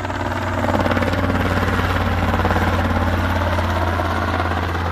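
Light helicopter running, with a steady low engine drone and a rapid, even beat from the rotor blades. It grows louder over about the first second, then holds steady.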